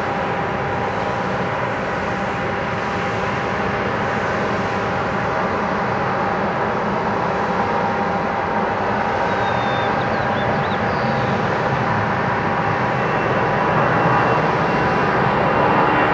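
Boeing 757-200's two jet engines at takeoff power during the takeoff roll: a steady rush of jet noise with a faint whine on top, growing louder as the airliner comes nearer.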